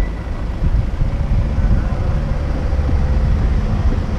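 Low, steady rumble of city road traffic: car engines and tyres moving through the intersection.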